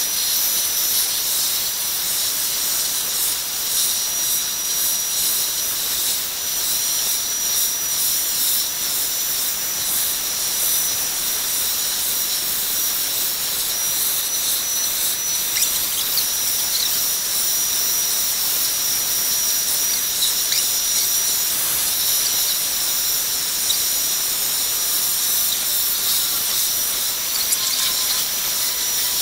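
Vacuum cleaner running steadily through a hose fitted to electric hair clippers, a rush of air with a thin high whistle as it sucks the hair up to be cut.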